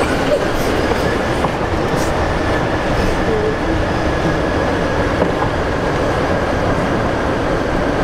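E-Z-GO electric golf cart driving along, its electric drive giving a steady high whine over the rumble of tyres rolling on concrete.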